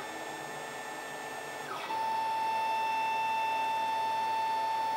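Benchtop CNC milling machine running, its spindle turning a center drill as the head lowers toward an aluminium ring, with a steady mechanical whine. About two seconds in, the pitch glides down briefly, then a louder steady whine sets in.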